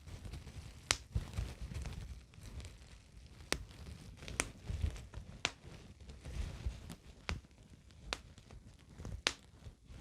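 Close-miked bubbles popping: soft crinkling with about seven sharp pops at uneven intervals.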